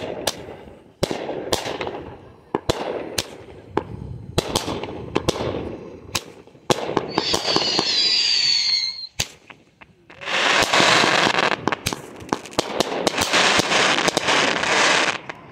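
Fireworks going off, Roman candle shots among them: a run of sharp pops and bangs that echo, a brief whistle about seven seconds in, then long stretches of dense crackling.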